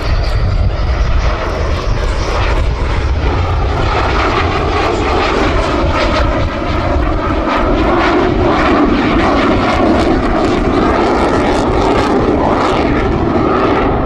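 Sukhoi Su-27 fighter flying past, its two AL-31F turbofan engines making a loud, steady jet rumble with a dense crackle that thickens about three seconds in.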